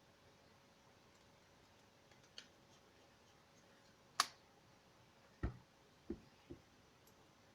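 A few small clicks and knocks from handling smartphone parts and tools during disassembly: a faint click, a sharp click about four seconds in, then three duller knocks in quick succession.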